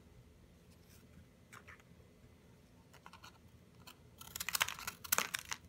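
Graham crackers handled in a plastic tub: faint light ticks, then about four seconds in a second or so of dry crunching and scraping of crackers against the plastic.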